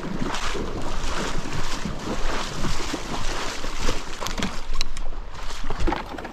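A person wading through shallow river water beside a paddleboard, legs sloshing and splashing with each stride. A few light clicks come about four to five seconds in.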